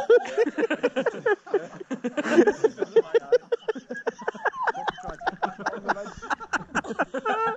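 Water sloshing and clicking against a waterproof action-camera housing bobbing at the lake surface, with people's voices and bursts of laughter over it.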